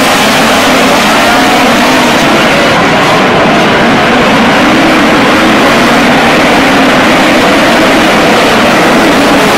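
A pack of midget race cars racing on a dirt track, their engines running hard in one loud, continuous blend of pitches that waver up and down as the cars pass and lift through the turns.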